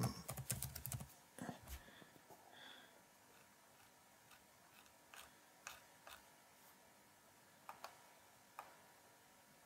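Faint clicks of a computer mouse and keyboard: a quick run of clicks in the first second, then single clicks every second or so.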